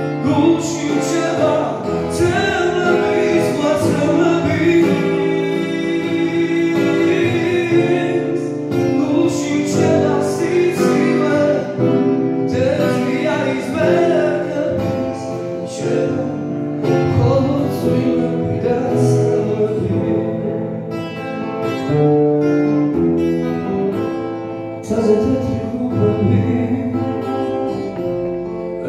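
A man singing a song with long held notes into a microphone, amplified through PA speakers, over an instrumental accompaniment.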